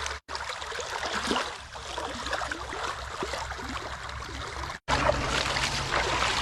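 Water running in an irrigation canal, a steady rushing and trickling. The sound drops out completely for a moment twice, about a quarter second in and near the five-second mark.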